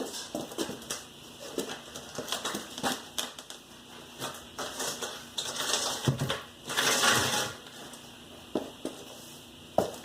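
Scattered knocks and clicks from hands and tools working on a car's rear wheel, with a brief scraping rustle about seven seconds in.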